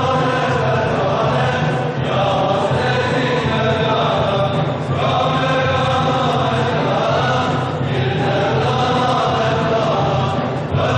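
Men's voices chanting together in long held phrases of about three seconds each over a steady low drone: Mevlevi sema ceremony music.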